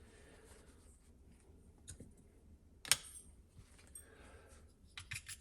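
Mostly quiet handling with a few light clicks and one sharp tap near the middle. Near the end, a quick run of scratchy ticks begins as WDT needles start stirring ground coffee in the portafilter.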